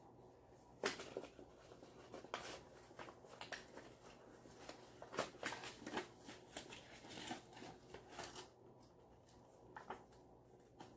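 Faint, irregular rustling and light clicks of a baby car seat's plastic parts and padding being handled during assembly, busiest for the first eight seconds or so, then sparser.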